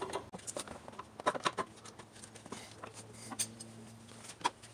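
Faint, scattered light clicks and taps of tools and parts being handled in a car's engine bay during reassembly, over a faint low steady hum.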